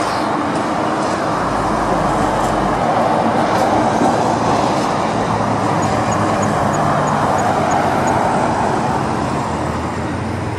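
Jet engine noise from a four-engine Boeing 747 moving along the runway: a steady rushing roar that swells about four seconds in and eases off near the end.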